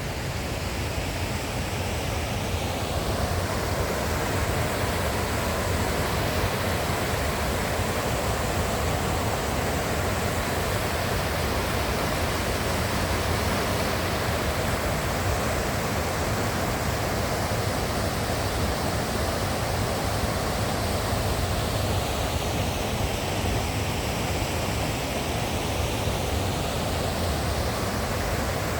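River water rushing steadily, an even wash of noise with no breaks.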